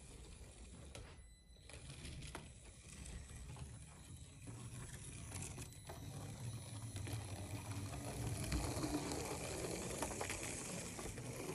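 Tiny FMS Flush 30 1:64-scale RC car's two drive motors and gear trains whirring faintly as it drives, growing louder as it comes close about eight seconds in.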